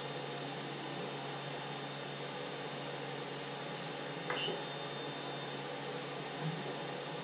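Steady fan hum with a faint, thin high whine, and a single light click about four seconds in.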